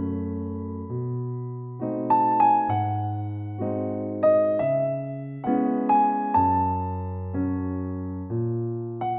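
Background music: a slow electric piano playing soft chords with a simple melody, each chord struck about once a second and left to ring.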